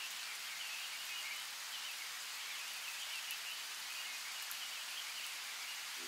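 Steady hiss of rain, with faint wavering chirps scattered through it and a few light ticks.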